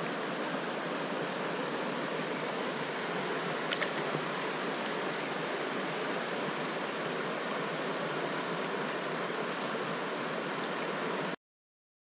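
Steady rush of flowing stream water at the bank, which cuts off abruptly near the end.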